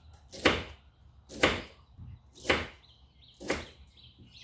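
Large kitchen knife chopping lemongrass on a round wooden chopping block: four sharp chops about a second apart.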